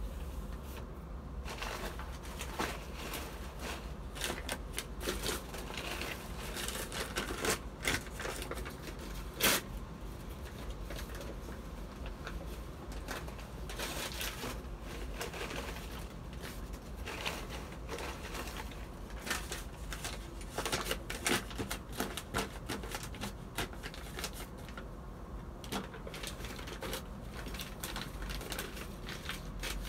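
Paper seed packet being handled and opened: irregular crinkling and crackling with scattered small clicks, over a low steady rumble.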